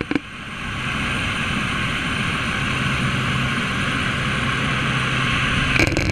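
Light high-wing plane's propeller engine running hard on its takeoff roll along a dirt strip, heard from a wing-strut camera with rushing wind over the microphone. The noise builds during the first second, then holds steady.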